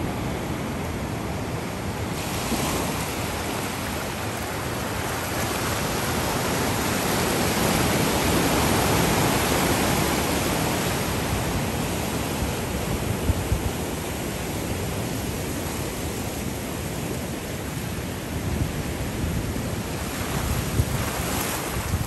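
Ocean surf breaking and foam washing through the shallows at the shoreline: a steady rush that swells to its loudest around eight to ten seconds in, then eases.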